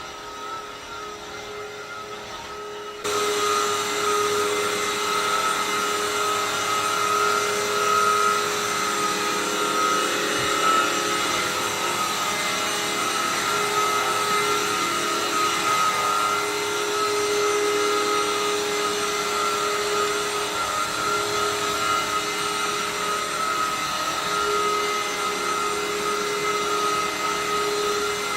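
Vacuum cleaner running with a steady whine and a rushing hiss; it gets much louder about three seconds in, then holds steady.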